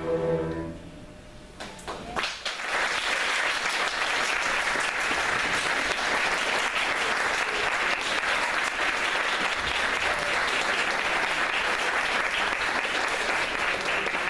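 A string ensemble's last chord fades away within the first second, then an audience breaks into steady applause about two seconds in.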